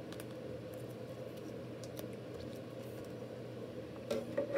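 Steady background hum with a few faint ticks. About four seconds in, a short clatter of clicks as a rigid plastic card holder is handled and set down on its stand.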